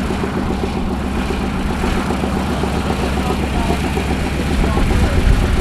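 Engine running steadily with a low, rhythmic throb, growing a little louder near the end.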